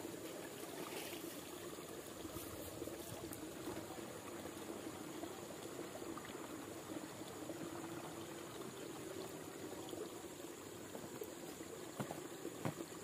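Water pouring and trickling from a plastic dipper into a plastic backpack sprayer tank. Near the end come a few sharp clicks as the tank's plastic cap is fitted.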